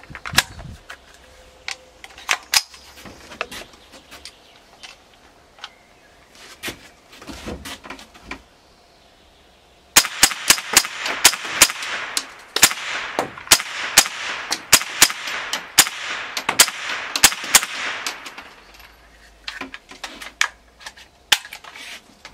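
Smith & Wesson M&P15-22 semi-automatic .22 LR rifle firing: a fast string of sharp cracks, about three a second, starts about ten seconds in and lasts some eight seconds. Fewer, quieter cracks come before and after it.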